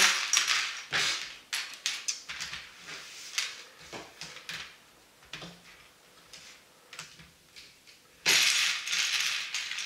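LEGO plastic pieces and baseplates being handled on a desk: scattered light clicks and rattles, thinning out midway. About eight seconds in comes a louder scraping rustle lasting about a second and a half.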